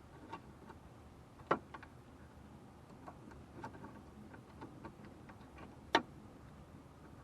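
Light scattered clicks of small plastic parts being handled as a retaining clip is worked out of the HVAC control's vacuum switch, with two sharper clicks, about a second and a half in and again about six seconds in.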